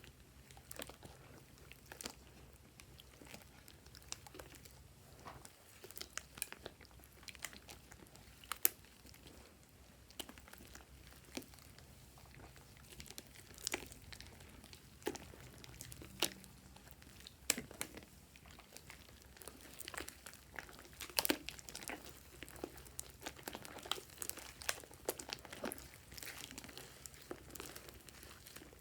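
Slime being handled: many scattered sticky crackles and small pops, with some crinkling.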